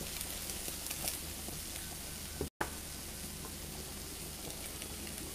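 Diced zucchini sautéing in oil in a frying pan, sizzling steadily. The sound cuts out for an instant about halfway through.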